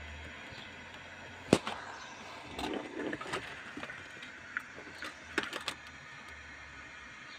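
Handling noise in a car cabin: one sharp knock about a second and a half in, a stretch of rustling and rattling, then a few quicker clicks toward the end, over a faint low hum.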